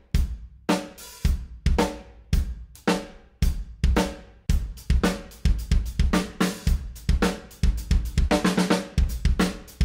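Nu metal drum-kit loops playing solo: kick drum, snare and cymbals in a heavy groove, with a quick run of hits near the end.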